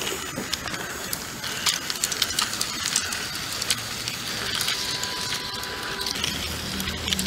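Battery-powered Rail King toy train running on plastic track: a steady hiss from the small motor and wheels, with many irregular clicks.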